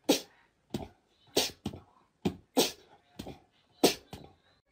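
A corgi barking in about eight short, sharp barks spaced roughly half a second apart, each dropping in pitch.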